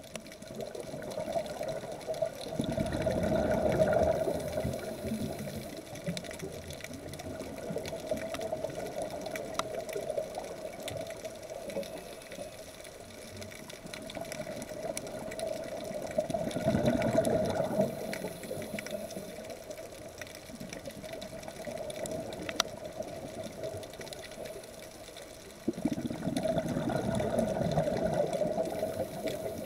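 Scuba diver's exhaled regulator bubbles heard underwater, three long gurgling surges roughly ten to twelve seconds apart, over a steady hum and scattered faint clicks.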